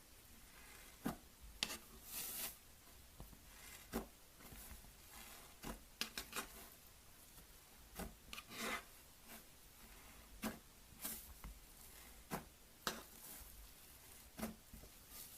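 Slime being played with by hand: faint, irregular sticky clicks and short squishing rubs, a dozen or so spread at uneven intervals.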